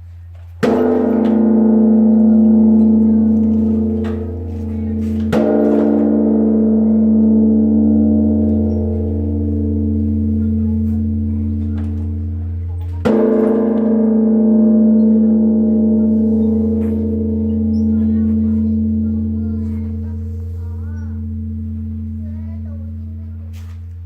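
Large Korean Buddhist bronze temple bell (beomjong) struck three times, about five and then eight seconds apart. Each blow starts sharply and rings on as a long, deep hum that slowly pulses and fades.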